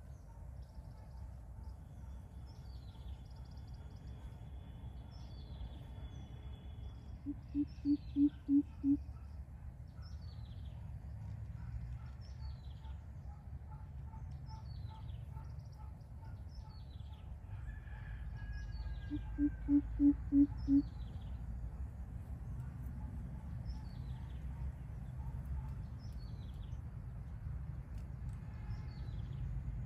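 Greater coucal calling: two series of about five deep, evenly spaced hoots, about eight and about twenty seconds in. A smaller bird repeats short falling high chirps roughly once a second throughout, over a steady low rumble.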